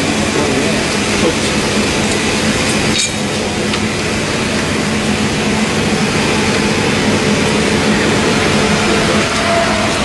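Vacuum forming machine and surrounding factory machinery running, a steady loud hum and rush of noise with no breaks, with one short knock about three seconds in.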